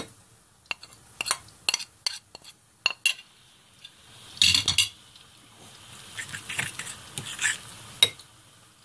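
Metal fork clinking and tapping against a ceramic mixing bowl as spices are worked into a wet mixture, in scattered sharp clicks with a louder flurry about halfway through.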